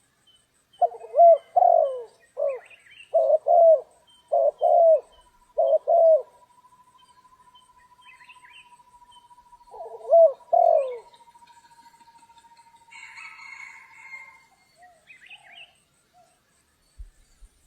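Spotted dove cooing: a run of low paired coos over the first six seconds, then one more pair about ten seconds in. Faint high chirps of small birds and a thin steady whistling tone sit under it.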